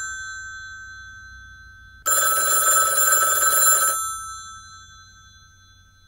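Telephone ringing: the tail of one ring fades away, then a second full ring of about two seconds starts about two seconds in, its tones lingering and dying away afterwards.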